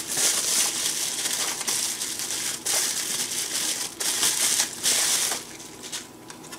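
Plastic bubble wrap crinkling and crackling as it is handled and pulled off a small blower fan. It dies down about five seconds in.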